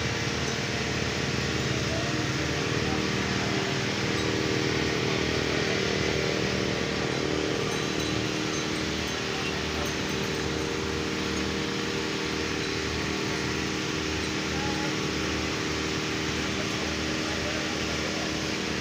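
A motor running steadily with a constant hum and an even low pulse.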